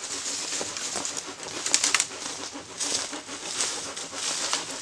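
Dead branches and twigs rustling and cracking as they are pulled and dragged from a pile of fallen deadwood for firewood, with a run of sharp snaps about two seconds in.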